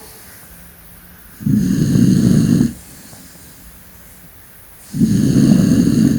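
An old dog snoring loudly: two long snores, each over a second, about three and a half seconds apart, with quiet between them.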